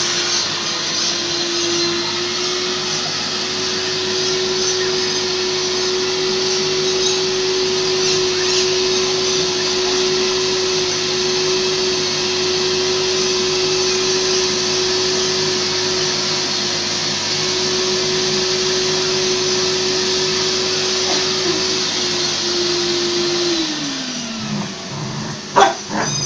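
Kärcher washing vacuum (spray-extraction upholstery cleaner) running steadily, its motor whining over the rush of suction as the nozzle is worked over the sofa fabric. Near the end the motor is switched off and winds down with a falling whine, followed by a couple of sharp knocks.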